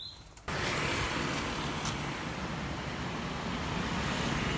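Steady street traffic noise that starts abruptly about half a second in, just after a short canary chirp.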